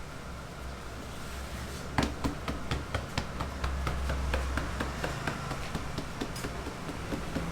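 Hands kneading and slapping fermented youtiao dough on a work surface: a run of irregular taps and slaps, several a second, starting about two seconds in, over a steady low hum.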